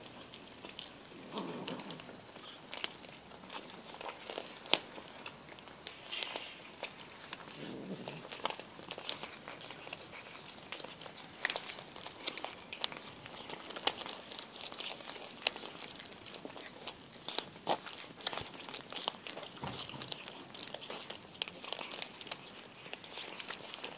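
Several cats chewing raw fish and crunching fish bones: a run of irregular sharp crunches and clicks, with two brief lower sounds about a second and a half and eight seconds in.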